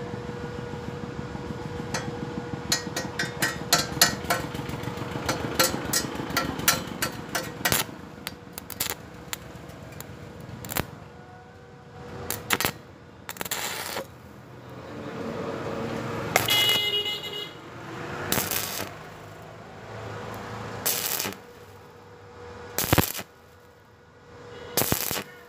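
Stick welding on thin square steel tube: the electrode arc crackles and sputters. Dense rapid crackling fills the first several seconds. After that the arc is struck in a series of short bursts with pauses between them.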